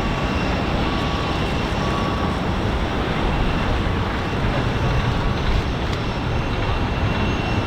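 Airbus A319 jet engines on landing, a steady rumble with faint high whining tones running over it.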